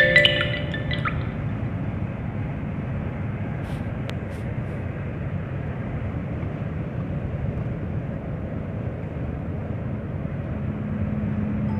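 A car driving on the road: steady engine and tyre noise, with a low steady hum coming in near the end. A music jingle fades out in the first second.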